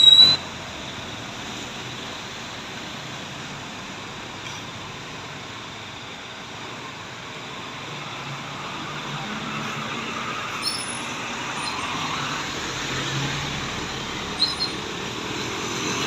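A short, loud, high-pitched beep right at the start, then motor-vehicle engine and road noise running steadily and growing gradually louder, with a couple of faint high chirps.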